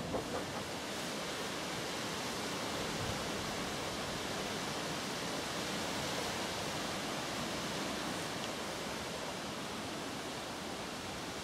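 Steady, even hiss of outdoor background noise, with no rhythm and no distinct events.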